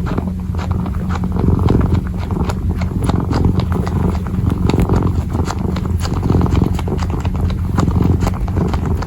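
Kitten purring in a steady low rumble while kneading, its paws and claws making many small irregular clicks and scratches.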